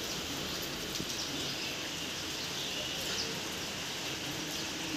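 Steady rain falling, an even hiss, with a few faint bird calls.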